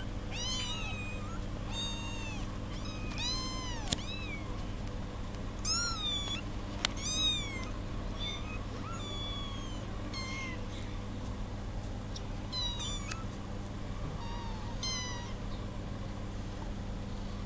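One-month-old kittens mewing: many short, high-pitched calls that rise and fall, coming in quick clusters and sometimes overlapping. A steady low hum runs underneath, and two sharp clicks come about 4 and 7 seconds in.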